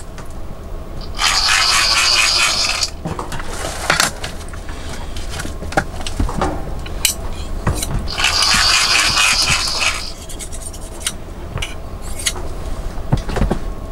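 Two bouts of scraping, each about two seconds long, with scattered clicks and knocks between them.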